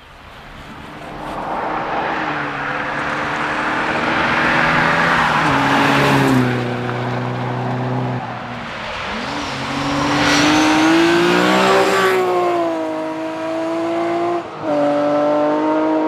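Rally car at full throttle, its engine note climbing and dropping sharply at gear changes about six and a half and fourteen and a half seconds in, over steady tyre and road noise. It grows louder over the first two seconds as the car comes closer.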